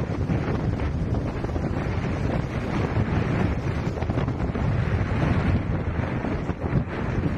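Wind blowing across the microphone in a steady, dense rush, with ocean surf beneath it.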